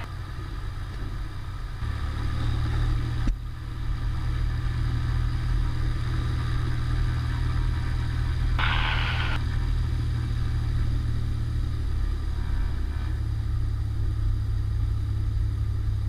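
Cessna 210 Centurion's six-cylinder piston engine and propeller running steadily at taxi power, the drone rising a step about two seconds in. A short click comes about three seconds in, and a brief hiss around nine seconds.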